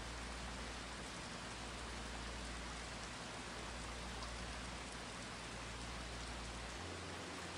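Steady rain-like hiss, even and unbroken. A low hum underneath changes pitch near the end.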